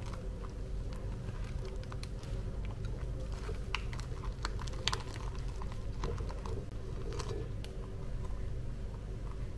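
Soft, irregular clicks and crinkles of hands rolling a wet rice-paper spring roll on a plate, over a steady low hum.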